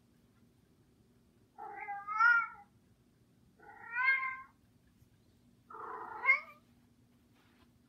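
Three cat meows about two seconds apart, each lasting under a second; the third is rougher than the first two.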